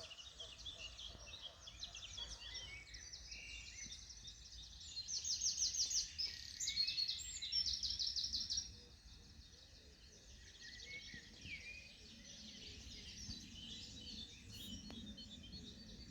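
Morning chorus of several songbirds chirping and singing together. About five seconds in, one nearby bird gives loud, fast trills of rapidly repeated notes for about three and a half seconds.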